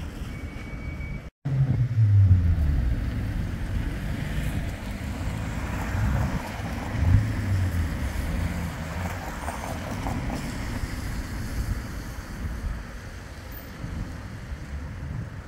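Road traffic passing at a street tram crossing, with wind buffeting the microphone; a vehicle sweeps by just after a brief dropout near the start, and another a few seconds later.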